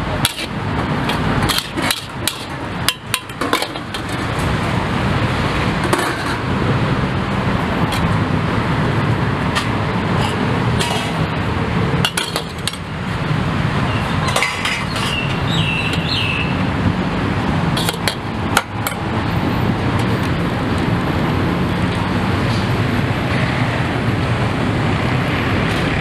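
Metal spatula clinking and scraping against a wok as Pad Thai is stir-fried, with sharp clinks scattered irregularly over a steady rushing background noise.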